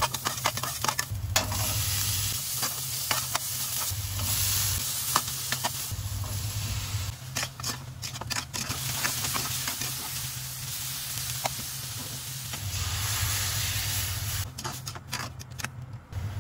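Garlic, then pork, onion and tomatoes sizzling in an aluminium saucepan, with a metal ladle scraping and clicking against the pan as it is stirred. A low hum comes and goes underneath.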